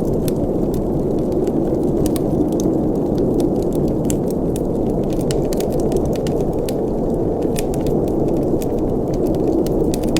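Wood fire burning in a fireplace: a steady low roar of flames with frequent sharp, irregular crackles and pops of burning wood.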